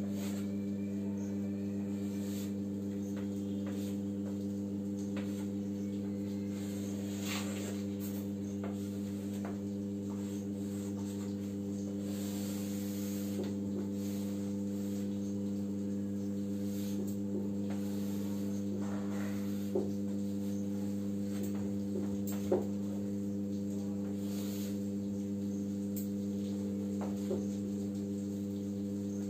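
Steady low electrical mains hum, with faint intermittent scratching of chalk on a blackboard and a few light chalk taps against the board in the second half.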